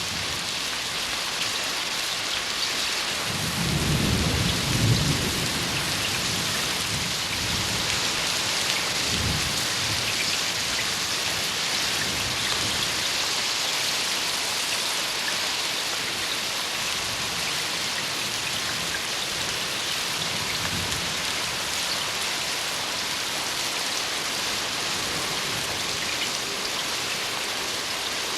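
Steady heavy rain sound effect, a continuous hiss of falling rain, with a rumble of thunder about four seconds in and fainter rumbles later.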